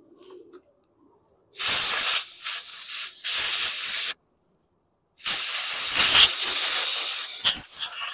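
Compressed air hissing from a blow gun in a few loud blasts of a second or two each, blowing dirt off a lawn mower engine's backing plate. The first blasts start about a second and a half in, and a longer run of blasts starts about five seconds in.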